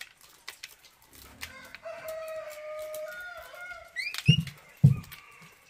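A rooster crows once, a long held call, over small scattered clicks of dried corn kernels being stripped from the cob by hand. Two dull thumps come a little after four seconds in.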